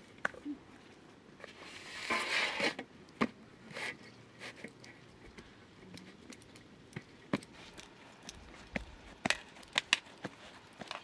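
Hands pressing and patting pizza dough out on a metal tray: scattered light taps and clicks, with a brief rustling scrape about two seconds in.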